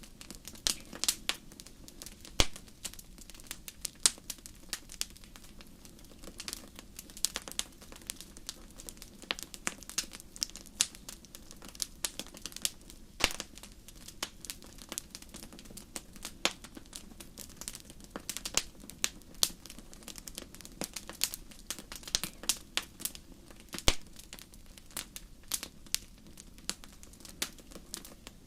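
Wood fire crackling, with irregular sharp snaps several times a second over a faint steady low rush.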